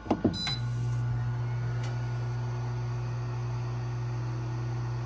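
Fotile ChefCubii 4-in-1 steam oven starting its air-fry mode: a short beep as the setting is confirmed, then its fan comes on about half a second in and runs with a steady, quiet low hum.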